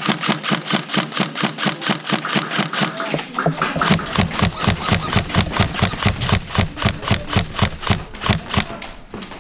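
Airsoft gun firing a long, steady string of sharp shots, about six or seven a second, with a heavier low thud under them from about three and a half seconds in.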